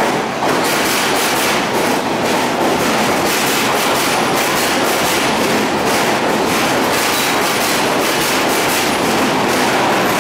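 Bombardier R142 subway train rolling past close by as it enters the station, a steady loud rush of running noise with its wheels clicking over the rail joints again and again.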